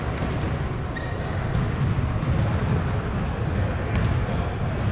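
Ball bouncing and play on a hardwood basketball court in a large gymnasium, over a steady low rumble, with a few short high sneaker squeaks in the second half.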